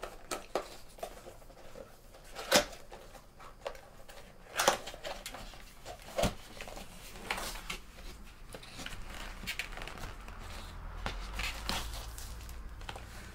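Cardboard keyboard box being opened by hand: the lid and flaps slide and scrape, with soft rustling and three sharp knocks in the first half.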